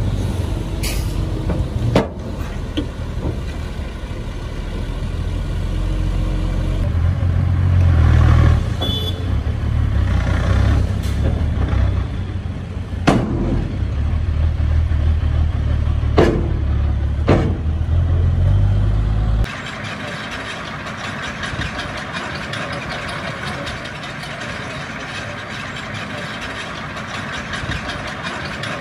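Heavy diesel earthmoving machinery running with a deep engine rumble, broken by a few sharp metallic clanks. About two-thirds of the way through the sound changes abruptly to a lighter, hissier engine noise with little of the deep rumble.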